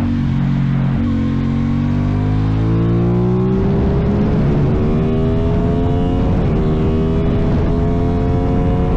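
Aprilia Tuono 660 parallel-twin engine through a cheap aftermarket exhaust, accelerating under way: the pitch holds for about a second, then climbs steadily, with a short dip about two-thirds in, like a gear change.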